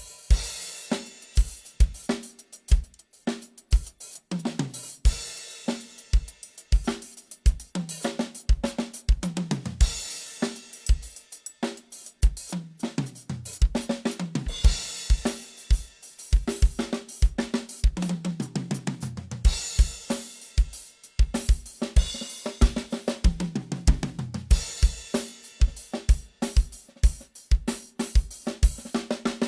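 A drum kit played solo as a sound check: steady bass drum strokes under snare and hi-hat, broken every few seconds by fast fills that fall in pitch and land on cymbal crashes.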